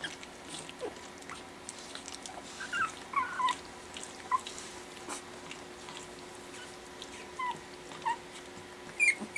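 Four-week-old Pekingese puppies giving short, high squeaks and whimpers as they tussle, a cluster about three seconds in and more near the end, over light scuffling and clicks on the blanket.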